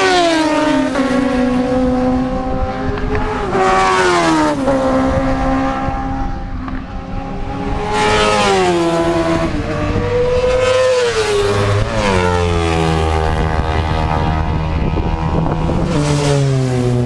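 Motorcycles at high revs racing past one after another, about five passes, each engine note dropping in pitch as the bike goes by.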